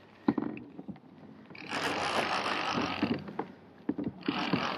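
Fishing reel being cranked to bring in a hooked kokanee, its whirring in two spells of a second or more, with a few light clicks and knocks between.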